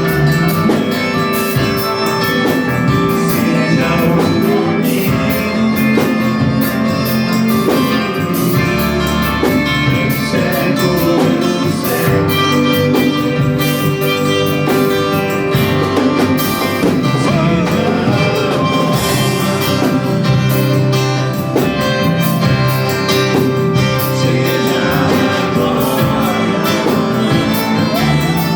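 Music: a song with guitar and a singing voice, playing steadily.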